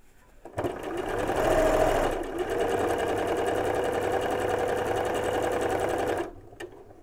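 Domestic electric sewing machine stitching a seam through patchwork fabric at a steady speed. It starts about half a second in, dips briefly about two seconds in, and stops shortly before the end.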